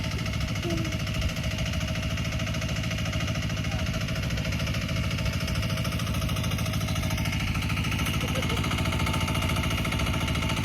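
A small engine running steadily at a constant speed, with an even low pulsing throughout.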